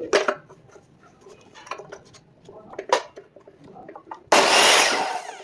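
Sharp knocks and clatter of wood being handled, then, about four seconds in, a loud burst of miter saw noise lasting about a second that fades with a falling pitch as the blade spins down.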